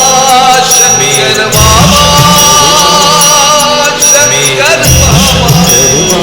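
Instrumental passage of a DJ remix of a Hindi devotional song, with a melody line over heavy bass that comes in twice. Jingle-like percussion ticks along on top.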